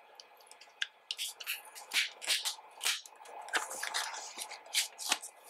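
A black card sleeve of photo cards being opened by hand: the sticker seal peeled and the flap pulled open, giving a string of short crisp paper rustles and scrapes.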